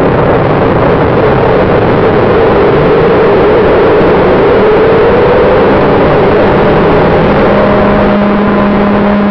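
Twin electric motors and propellers of an FPV model plane heard from the onboard camera on the take-off run: a loud, steady whir with a hum that rises slightly in pitch midway, then settles with a steady low tone near the end.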